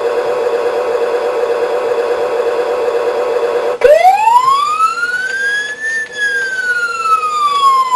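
Toy fire engine's electronic siren sound effect from its built-in speaker: a fast-warbling tone, then about four seconds in an abrupt switch to a wail that rises for two seconds and slowly falls.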